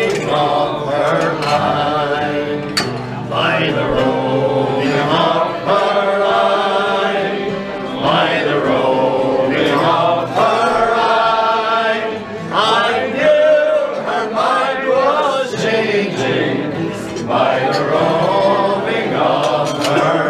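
A pub crowd singing a song together, with acoustic guitar accompaniment.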